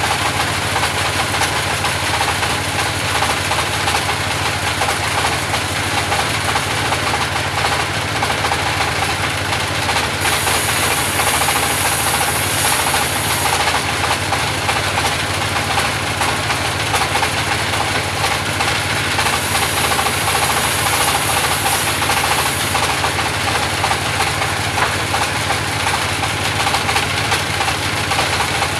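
Engine-driven band sawmill running steadily. A higher hiss joins it twice, about ten seconds in for some three seconds and again about nineteen seconds in, as the blade cuts through timber.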